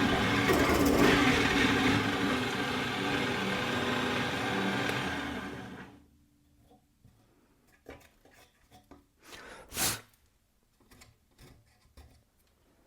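Parkside bench pillar drill running and boring into wood, then switched off and winding down about five seconds in. Afterwards only a few light clicks and one sharper knock near the ten-second mark.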